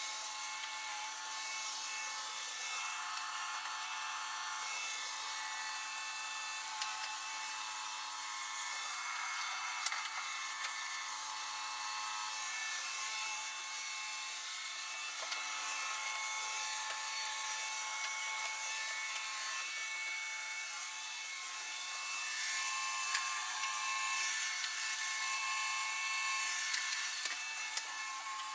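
iRobot Roomba j7 robot vacuum running and cleaning: a steady whir of its suction motor and brushes with a constant whine, and a few light knocks as it moves.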